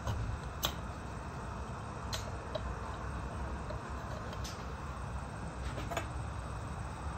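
A handful of sharp, irregularly spaced metal clicks as reed valve blocks and other parts are handled around the crankshaft of a Mercury 650 outboard power head, over a steady low background rumble.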